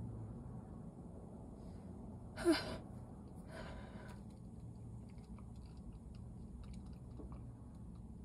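A woman with a cold makes one short, sharp breathy burst, a gasp, about two and a half seconds in. A softer breath follows about a second later against quiet room tone.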